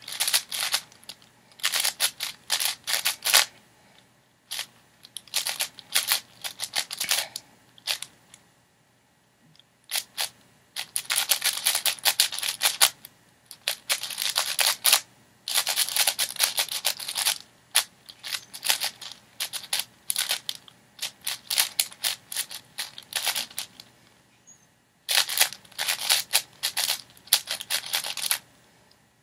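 Plastic 6x6 speed cube being turned rapidly by hand: bursts of fast clicking layer turns, broken by short pauses, one near the middle and one about three quarters of the way through.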